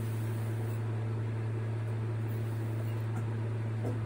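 Steady low electrical hum with a few overtones, with a couple of faint ticks near the end.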